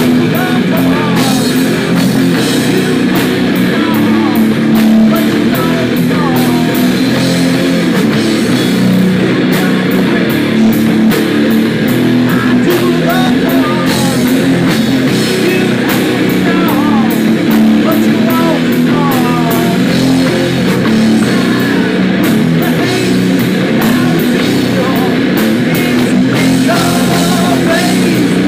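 A rock band playing live: electric guitars, drum kit and a singer's vocals, loud and continuous.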